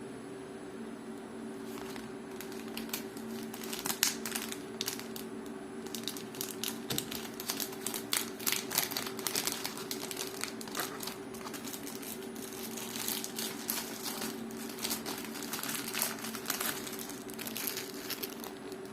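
Packaging crinkling and crackling in irregular bursts as it is handled, starting about two seconds in and busiest through the middle, over a steady low hum.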